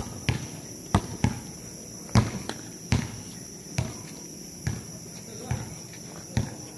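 A basketball bouncing on a hard outdoor court, about a dozen irregular thuds as players dribble, with a steady high-pitched hum underneath.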